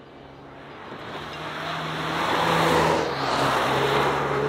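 Volkswagen T-Roc R's turbocharged 2.0-litre four-cylinder and its tyres as the car is driven past on a track in race mode. The sound grows steadily louder as it approaches and is loudest as the car passes, about three seconds in.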